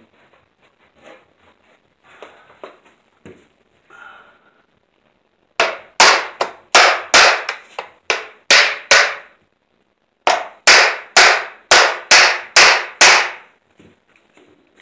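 Hammer blows on the aluminum sliding-door track as a dented section is knocked out: two runs of about nine sharp strikes each, roughly three a second, each with a short ring, with a brief pause between them. Faint small knocks come before them.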